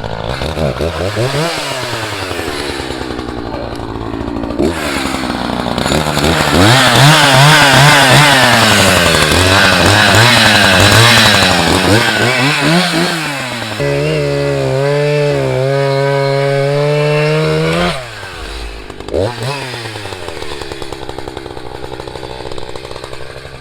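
Echo CS-590 chainsaw (59cc) revving up and down again and again while bucking a felled popple trunk, settling into a steady pull for a few seconds past the middle, then dropping off and revving once more before running lower near the end.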